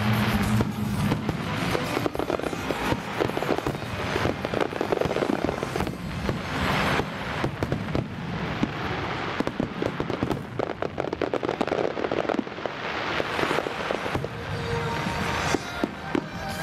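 Fireworks display: a dense, continuous run of crackling and popping from bursting shells, with music underneath.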